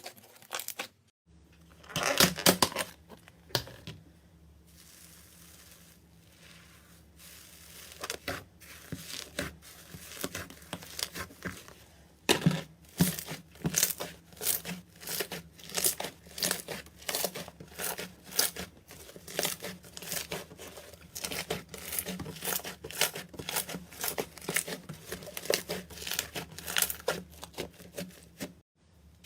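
Slime being squeezed, poked and pressed by hand, giving wet crackling and popping sounds in quick repeated squishes, about two a second through the second half.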